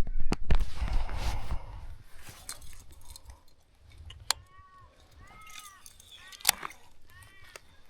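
Loud knocking and rumbling handling noise on the microphone for the first second and a half, then a bird calling repeatedly in short arched notes, with two sharp clicks among the calls.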